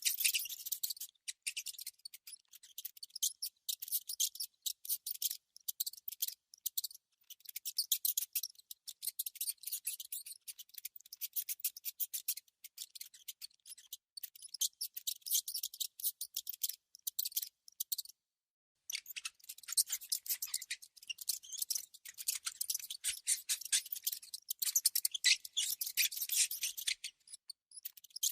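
Mouse sound effect: rapid, dry scratching and nibbling clicks in quick irregular runs, high-pitched with no low end. The runs break off briefly a little past halfway.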